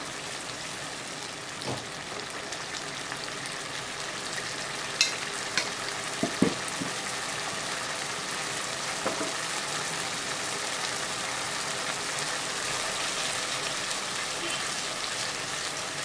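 Chopped chili, shallot and tomato paste frying in oil in a wok, a steady sizzle and bubble as it is stirred with a spatula, with a few sharp knocks of the spatula against the pan about five to six and a half seconds in. The chili is being fried until fully cooked before the water spinach goes in.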